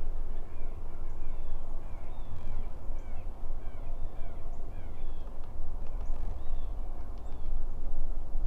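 Birds chirping over and over, many short falling calls about two a second, over a steady low rumble.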